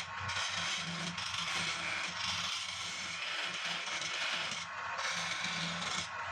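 Turning tool cutting palm wood on a spinning lathe: a steady scraping hiss that breaks off briefly a couple of times as the tool lifts from the wood, over a low hum from the lathe.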